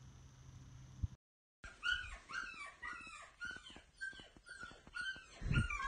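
German Shepherd with a plush toy in its mouth: a quick run of short, high squeaks, about three a second. A low thump comes near the end.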